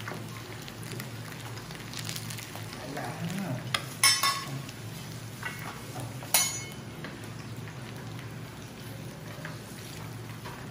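Battered fish deep-frying in hot oil in a wok, a steady sizzle, while a steel ladle and skimmer stir and lift the pieces. Sharp metal clinks of the utensils against the pan ring out, the loudest about four seconds in and another about six and a half seconds in.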